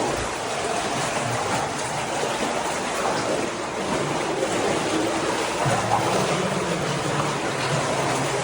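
Running water rushing steadily through a tunnel, with a few slightly louder splashes.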